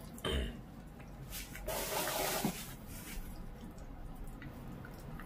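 A dachshund chewing and tearing at a raw whole duck, making wet, squelching eating sounds. There is a short burst just after the start and a louder, longer wet stretch about two seconds in.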